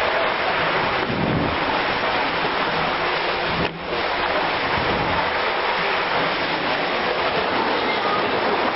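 Loud, steady rushing water, such as a mountain stream or waterfall, briefly dropping away about four seconds in.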